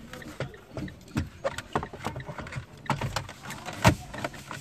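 Plastic dashboard trim panel with its air-vent grille pressed into place by hand: a run of sharp clicks and taps as its pins and clips snap into their mounts, the loudest about four seconds in.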